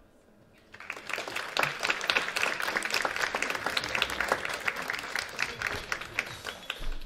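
Audience applause: after a brief quiet, dense clapping starts about a second in and carries on.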